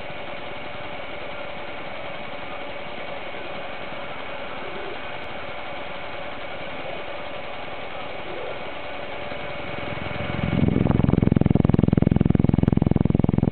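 Blade CX2 coaxial RC helicopter's electric drive: a steady faint whine for about ten seconds, then the motors spin up and the geared drive runs much louder, with a fast, even rattle.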